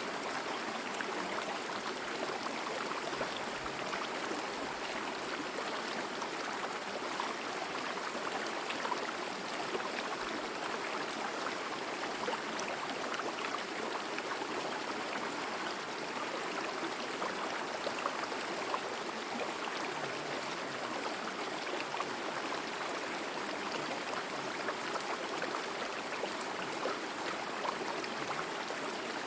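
A forest stream flowing in a steady babble, with small splashes and gurgles running through it.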